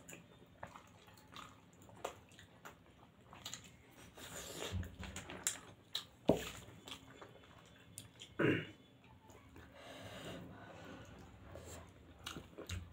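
Close-up eating sounds: chewing and mouth smacks on soft paneer momo dumplings, with scattered small clicks. A couple of louder short sounds come about six and eight and a half seconds in.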